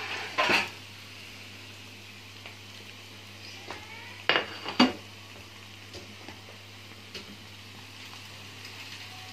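Metal spatula scraping and knocking against a wok, once about half a second in and twice between four and five seconds in, over a soft steady sizzle of starch-coated anchovies deep-frying in oil.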